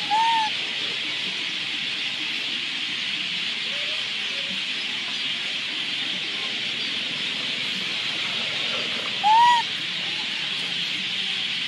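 Two short hooting calls, each rising then falling in pitch, about nine seconds apart, over a steady high-pitched hiss.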